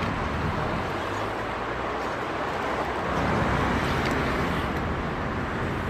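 Steady road traffic noise, swelling slightly about halfway through.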